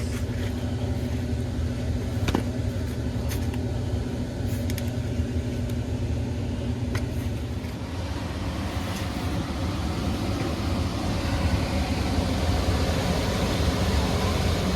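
A Carrier 90-percent condensing gas furnace starting up after a power reset: a steady low hum with a few sharp clicks in the first half, then a rushing air noise building from about halfway as the draft inducer comes up to speed. The unit has been throwing a pressure-switch fault code.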